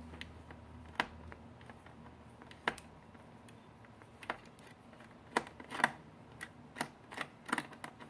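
Light, irregular clicks and taps of a screwdriver loosening the captive screw on the plastic bottom cover of an HP Pavilion G4 laptop. There are a few at first, coming more often near the end.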